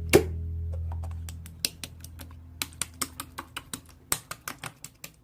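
Music fades out over the first second and a half, with one loud click near the start. After that comes a steady run of quick, sharp clicks, about four or five a second.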